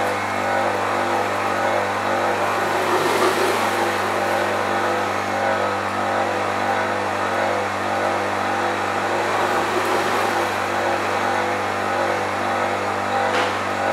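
Electric pressure pump of a pipe-leak test rig running steadily with a constant hum, holding the pipe at about 8 bar. Water hisses as it sprays from holes drilled in the pipe while the leak-repair chemical circulates before the leaks seal.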